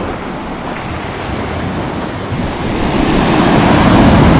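Black Sea surf on a pebble beach: the wash is low at first, then a wave breaks and surges up the shore, growing loud from about three seconds in.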